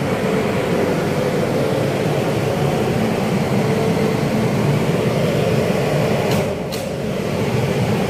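Three-phase exhaust fan running steadily at high speed, a constant hum and rush of air, switched to high speed by a fire-alarm signal. The level dips briefly about six and a half seconds in.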